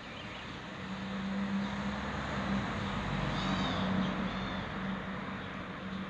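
A steady low mechanical hum under a rush of noise that swells over a few seconds and then eases, with a few short high bird-like chirps near the middle.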